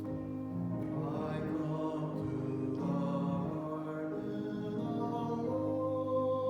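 Slow worship music with long held notes that change every second or so.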